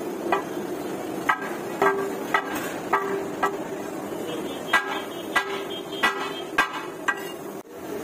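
Large cleaver chopping fried chicken chap on a flat metal griddle: sharp knocks about two a second, six in a row, a pause, then five more.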